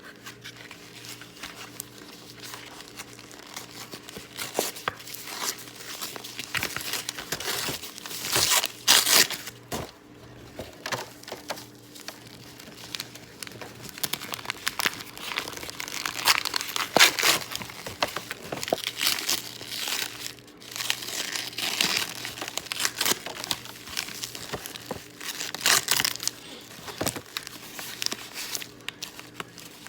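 Packaging being crinkled and torn open close to the microphone, a continuous irregular rustling with louder crinkling bursts at a few points. A faint steady hum sits underneath.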